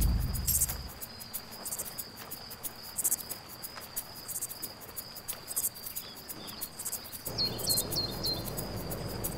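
Night-time cricket chorus: a steady high trill with regularly pulsing higher chirps, while a low rumble fades out in the first second. Near the end, four quick high chirps.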